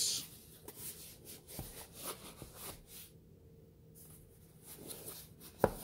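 Cardboard box being handled and turned over in the hands: soft rubbing and scraping of hands on cardboard, then one sharp knock near the end.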